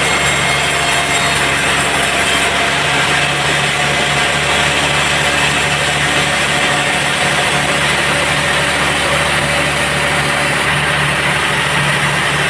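Sawmill bandsaw machinery running steadily, a continuous engine-like hum with a steady higher tone.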